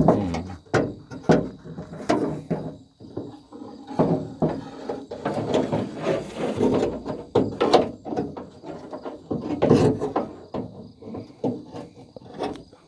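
A door latch knocking, clunking and scraping against the inside of a hollow steel 1988 Ford F-150 door as it is worked into the door cavity by hand; irregular knocks with some ringing from the door shell.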